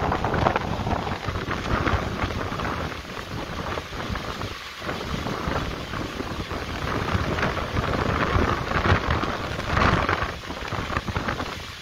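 Heavy rain pouring down in a thunderstorm with strong wind, the downpour swelling and easing in gusts.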